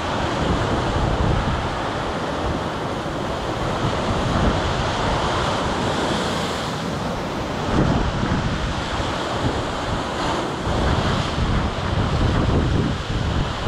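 Ocean surf breaking and washing against a rock ledge, with gusting wind buffeting the microphone.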